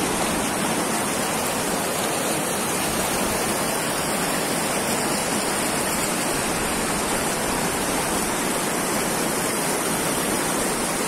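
River rapids rushing over boulders: a steady, even wash of fast water.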